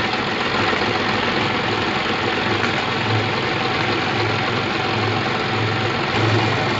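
Toyota 4-ton forklift engine idling steadily, with a low throb that swells and fades every second or so.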